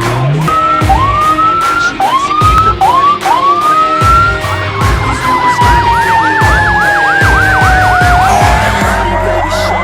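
Emergency vehicle sirens sounding loudly on a fire response. In the first half there are several short rising wails; about halfway in, a fast warbling yelp starts over a long tone that slides slowly downward.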